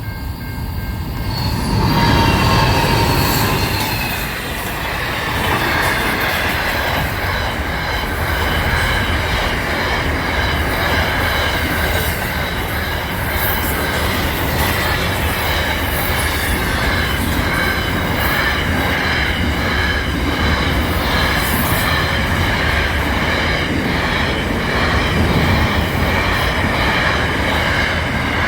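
A train running on the rails, with a low rumble and a steady high squeal from the wheels on the track.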